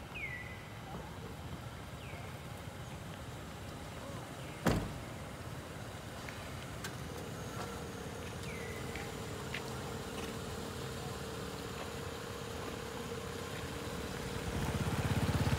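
A few short falling squeaks from a baby long-tailed macaque, seconds apart, over a steady low rumble. A single sharp knock about five seconds in, and the rumble grows louder near the end.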